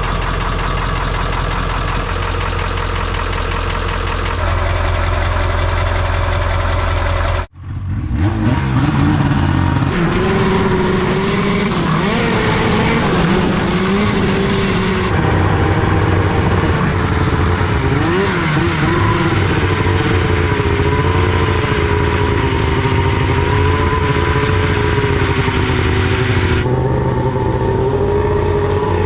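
Ford Powerstroke diesel engine idling steadily just after a cold start, warmed by a coolant block heater and glow plugs. It cuts off abruptly about seven seconds in, and a different engine then runs with a pitch that wavers up and down.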